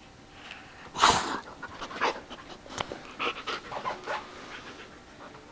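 Siberian husky panting close to the microphone, a run of quick breaths, the loudest a sharp burst of noise about a second in.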